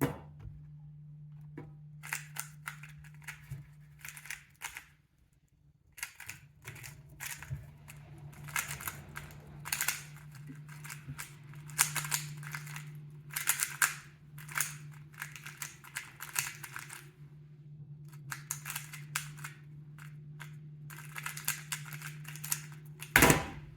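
A Moyu RS3M 3x3 speedcube being turned rapidly during a timed solve, its plastic layers clicking and clacking in fast flurries with brief pauses between them. Near the end there is one loud sharp slap.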